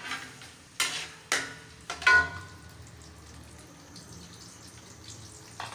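Chopped onions going into hot ghee in an aluminium pot and sizzling steadily, with a few sharp clanks of a metal spoon against the pot in the first couple of seconds, the loudest about two seconds in.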